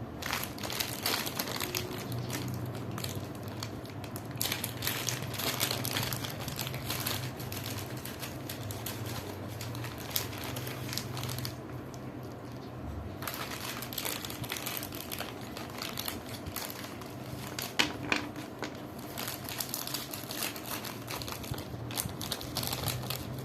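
Plastic packaging crinkling and rustling as it is handled, with many small clicks and a few sharper knocks. The rustling pauses briefly about halfway through.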